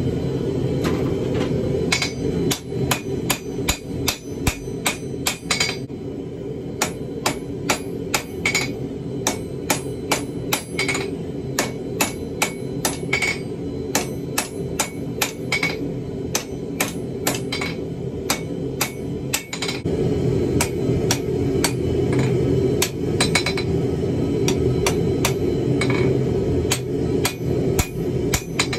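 Hammer blows on a red-hot wootz crucible steel bar on an anvil, about two sharp strikes a second with a brief ring, over a steady low rumble.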